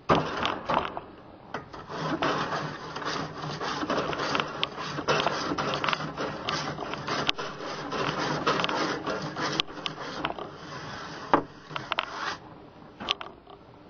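Grill brush scrubbing the metal grates of a propane barbecue in quick, repeated back-and-forth strokes, cleaning them while the grill heats up. The scrubbing stops about 12 seconds in, leaving a few light clicks.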